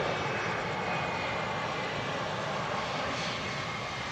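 Airbus A330-200 jet engines running, a steady rush with a thin high whine.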